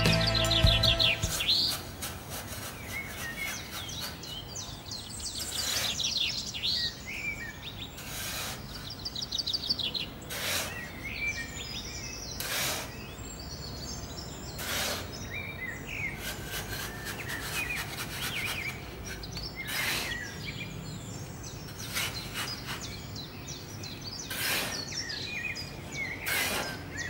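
Small birds chirping and trilling throughout, with short scrapes of sand being scooped out every couple of seconds.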